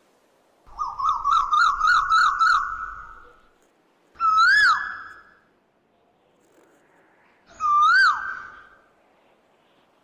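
Asian glossy starlings calling: a fast run of about eight whistled notes that each rise and fall, then two single loud rising-and-falling whistles a few seconds apart.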